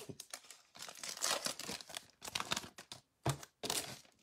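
Foil wrapper of a Donruss baseball card pack crinkling and tearing as it is opened and handled, in irregular rustling crackles.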